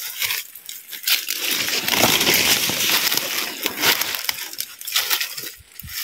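Footsteps crunching and scuffing through dry leaves and brush on a slope. The rustling is densest and loudest in the middle, with separate crunches either side.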